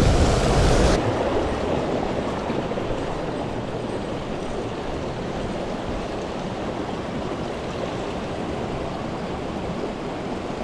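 Mountain stream water rushing steadily over rocks, with a louder low rumble in the first second that then drops away.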